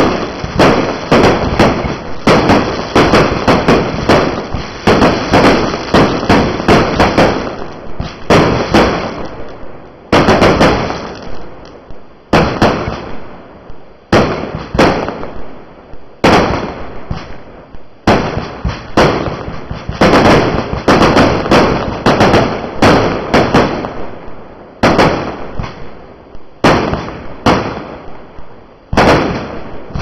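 Fireworks barrage going off: sharp bangs and aerial bursts in rapid runs, several a second, with brief lulls between volleys.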